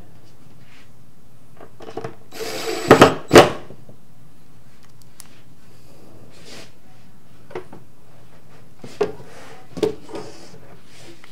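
Cordless drill driving 1-inch wood screws through a wooden shelf into a lazy susan turntable: a loud burst of drilling about two and a half seconds in, then a few shorter, quieter knocks and bursts later on.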